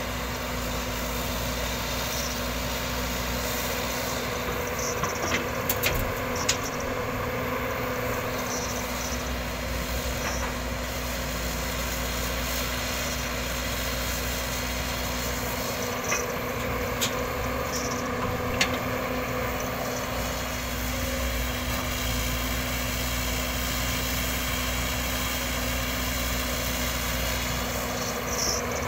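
Tracked JCB excavator's diesel engine running steadily as it swings and dumps its bucket, with a few sharp knocks about five to six seconds in and again around sixteen to eighteen seconds.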